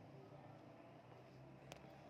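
Near silence: faint room tone with a low steady hum, and one faint click near the end.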